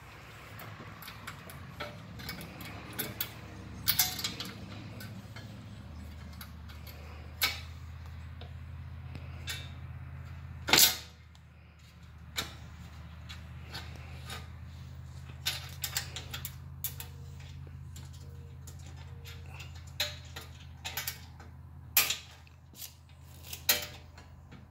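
Scattered clicks, taps and knocks of metal mounting hardware and tools being handled while a front-mount intercooler is fitted behind a bumper beam. The loudest knock comes about eleven seconds in. A steady low hum underneath grows louder about six seconds in.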